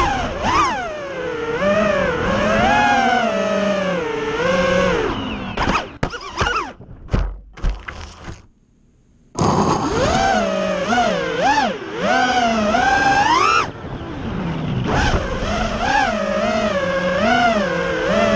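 Onboard audio of a racing quadcopter's XNOVA RS2206 2500kv brushless motors and propellers whining, the pitch rising and falling with the throttle. About six seconds in, a run of knocks and tumbles as the quad hits the ground. The motors cut out for about a second, then spin back up to a whine as it lifts off again.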